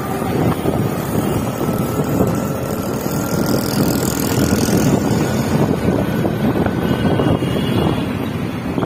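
Wind rushing over the microphone of a motorbike ridden through city traffic, a steady loud rumble, with a faint whine slowly rising in pitch that stops about seven seconds in.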